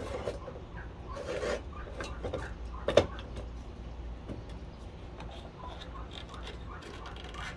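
Light metallic clinks and knocks as steel stock is shifted on a miter saw's table and its screw hold-down clamp is tightened down on it, with one sharper knock about three seconds in.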